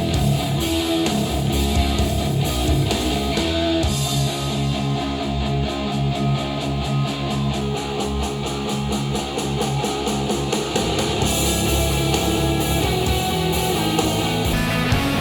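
Guitar-led instrumental music played back through Edifier powered bookshelf speakers and picked up by microphones in the room.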